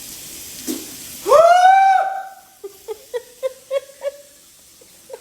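A person's voice in pain after the spicy chip: one loud drawn-out cry, rising and then held, about a second in, followed by a quick run of short pitched whimpers.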